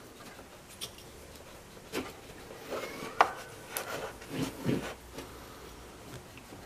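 Hands handling hand tools and a shop rag: a scattered series of light clicks and knocks with some rubbing, the sharpest click a little after three seconds in.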